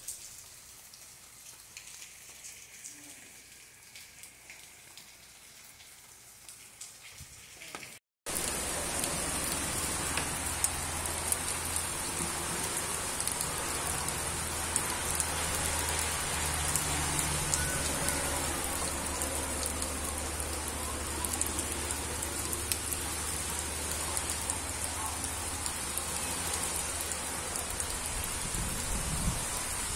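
Steady rain, faint for the first eight seconds; after a brief break the sound becomes a much louder, heavy rain falling on banana plants and palm fronds.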